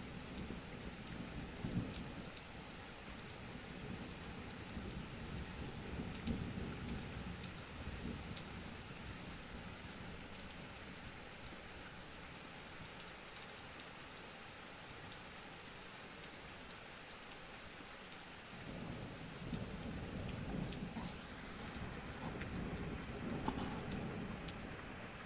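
Steady rain falling, with many small raindrop ticks. Low rolls of thunder rumble at the start, again a few seconds later, and once more through the last third.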